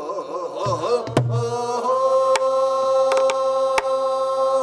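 Korean pansori-style singing of a danga line: a wavering, ornamented phrase that settles about two seconds in into one long held note. Several sharp strokes on a buk barrel drum, struck with a stick, keep the jangdan under it.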